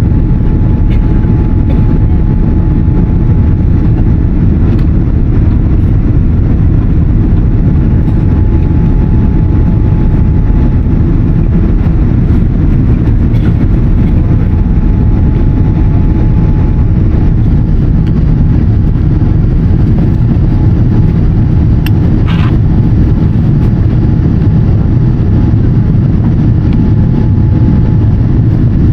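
Steady, loud low rumble of a Boeing 787-10's engines and airflow heard inside the passenger cabin, with a faint thin tone coming and going and a brief sharp click or knock about 22 seconds in.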